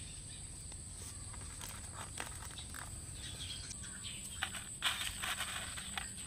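Plastic crisp packaging crinkling and rustling in short bursts as chips are slid out of a clear plastic tray, loudest a little past the middle, over a steady high-pitched whine.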